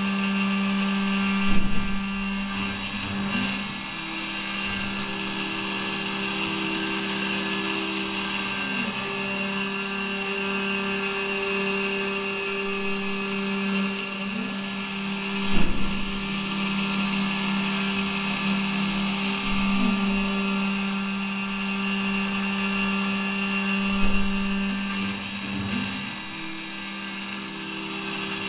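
Benchtop CNC milling machine cutting aluminium under coolant: the spindle runs with a steady whine and a high hiss from the end mill in the metal. A second tone comes and goes as the machine moves, with a few short knocks, the loudest about a second and a half and fifteen and a half seconds in.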